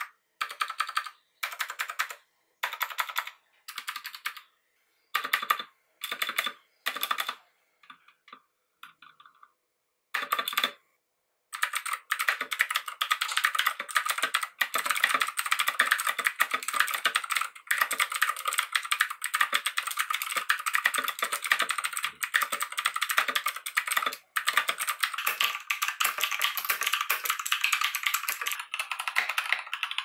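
Geek GK64 mechanical keyboard with clicky, tactile Gateron Blue switches being typed on. First come separate short clusters of keystrokes with silent pauses between them, then steady fast typing from about eleven seconds in.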